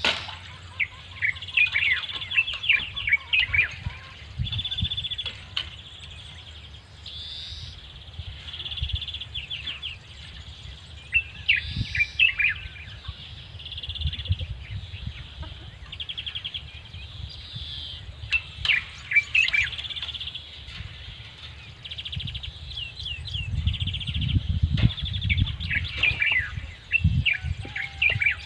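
Small birds chirping and twittering in repeated clusters of quick calls, over a low rumble that grows stronger near the end.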